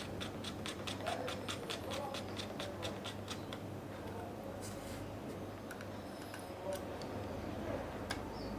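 A quick run of light, sharp clicks, about five or six a second for some three seconds, followed by faint scraping as small hardware is handled.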